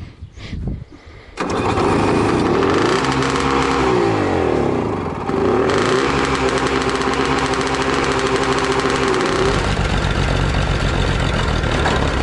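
MTZ-82 tractor engine started after a piston-group replacement. It starts suddenly and runs, its pitch sinking and rising a few times before holding steady. About nine seconds in it gives way to a lower, steady engine running.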